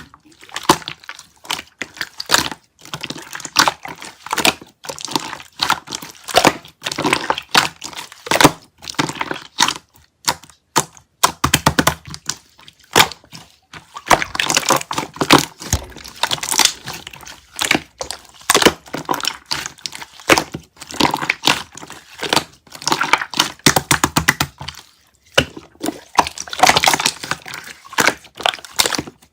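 Clear slime being squeezed and pressed by hand, giving a dense, irregular run of sticky clicks and pops.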